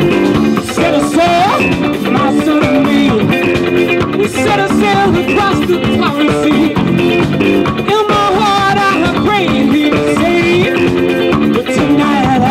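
Live rock band playing through amplifiers: drum kit, electric bass and electric guitar.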